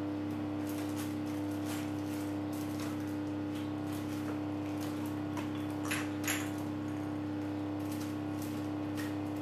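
A steady hum with a constant pitch, and faint clicks and rattles about six seconds in, typical of someone rummaging for something out of view.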